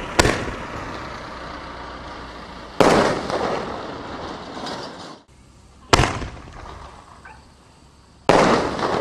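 1-3/4-inch reloadable artillery shells from an M800 Rising Hero kit firing and bursting in the sky: four sharp bangs about three seconds apart, each trailing off in a long fading echo.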